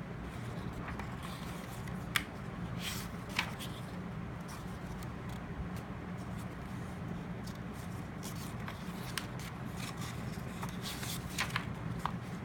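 Paper being handled, with light rustles and a few soft clicks as pages are turned, over a steady low hum.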